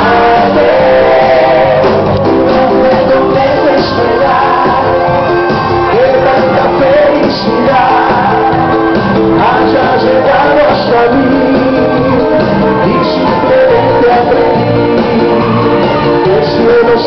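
A band playing with singing voices, loud and continuous, in a large room.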